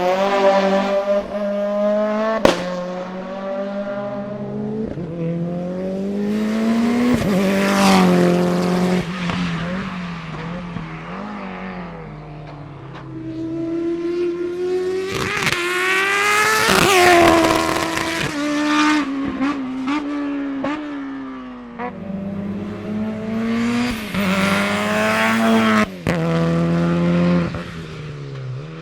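Race car engine accelerating hard up a hillclimb course, its pitch climbing and dropping sharply at each gear change and throttle lift. It is loudest as the car passes about two-thirds of the way through.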